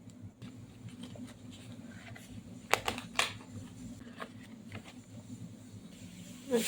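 Faint scattered clicks and taps of handling, with two sharper clicks about three seconds in, over a low steady hum.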